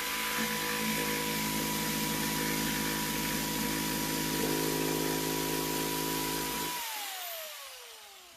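DeWalt corded jigsaw running steadily as its blade cuts through a wooden panel. It is switched off about seven seconds in, and its motor whine falls in pitch as it winds down.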